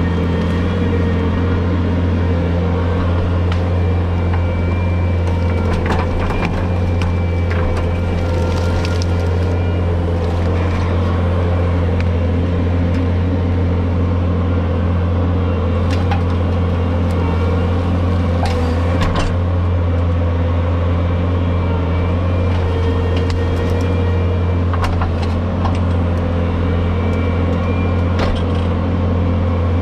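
Brushcat rotary brush cutter running on a skid-steer loader, a steady, unbroken machine drone from the engine and spinning cutter. Scattered sharp cracks and snaps of brush being cut come through it a handful of times.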